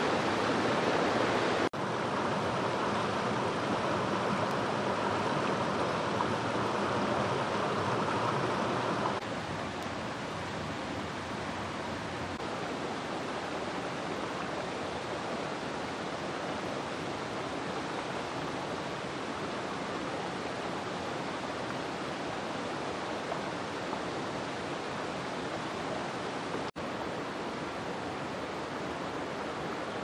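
Rocky forest stream rushing over boulders in small cascades, a steady rush of water that steps down to a quieter, more distant rush about nine seconds in.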